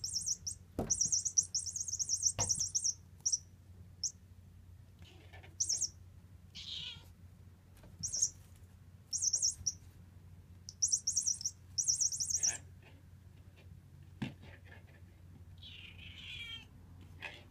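A mouse-in-ball cat toy giving off short, bright, very high-pitched rattling bursts in irregular clusters as a kitten bats it around, with a few sharp knocks.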